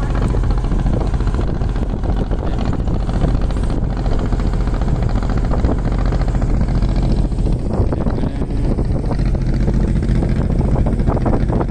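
A vehicle driving: a steady low engine and road rumble with a fast, even throb.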